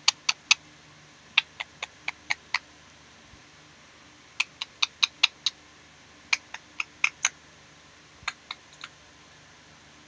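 Green parakeet's beak tapping and nibbling at the phone, giving short sharp clicks in quick runs of several at a time, about five runs.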